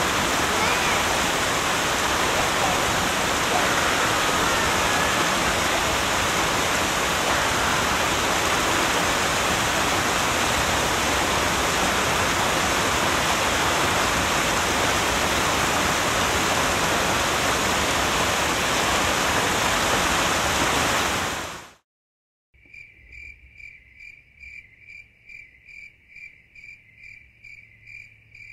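A loud, steady hiss with no distinct sounds in it, which cuts off abruptly about 22 seconds in. After a moment of silence, a quieter, regular, insect-like chirping begins, pulsing a few times a second over a faint low hum.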